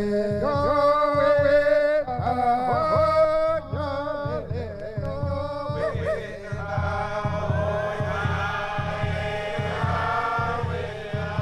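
1970s recording of a Chickasaw tick dance song: men's voices chanting over a steady low beat. A single voice leads at first, and more voices fill in about halfway through.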